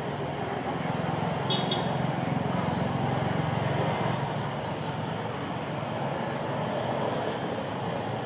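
An insect, likely a cricket, chirping in a steady high-pitched rhythm of several even pulses a second, over a constant low street rumble of traffic.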